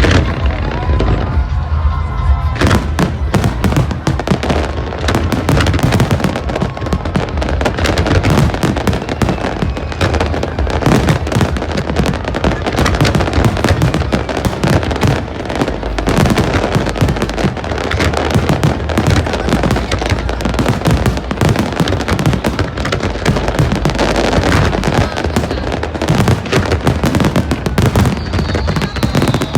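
Fireworks display: a dense, continuous barrage of bangs and crackling from aerial shells, thickening about two and a half seconds in, with a whistling firework rising near the end.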